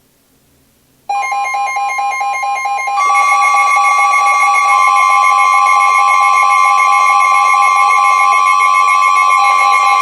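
An emergency weather alert tone starts abruptly about a second in. It begins as a fast warbling alarm on two pitches, and from about three seconds a steady piercing tone is added and holds. It is the attention signal that precedes a broadcast winter storm warning.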